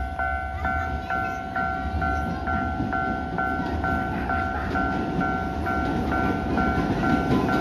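Japanese level-crossing warning bell ringing in even two-tone strokes about twice a second. Under it, a train's running rumble builds, growing louder toward the end.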